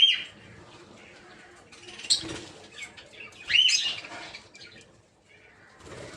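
Peach-faced lovebirds giving high, sharp chirping calls: one at the very start, another about two seconds in, and the loudest about three and a half seconds in.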